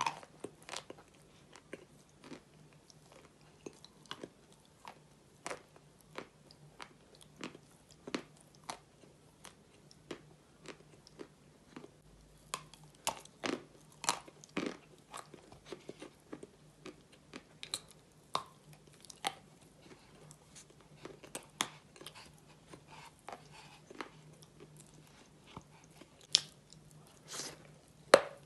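Close-up mouth sounds of biting and chewing pressed edible chalk topped with cream: irregular sharp crunches, roughly one to three a second, with louder bites near the middle and near the end. A steady low hum runs underneath.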